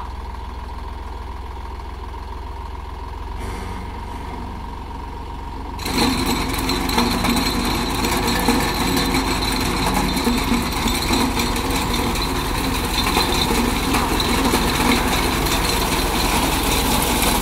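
Massey Ferguson 9500 diesel tractor idling steadily with a front-mounted reaper. About six seconds in, the sound jumps abruptly louder and denser as the engine takes load and the reaper starts running, then holds steady with a rattling clatter.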